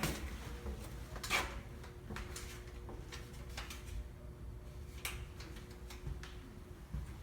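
A few sharp clicks and knocks, the loudest at the start and about a second and a half in, with fainter ones scattered after, over a low steady hum.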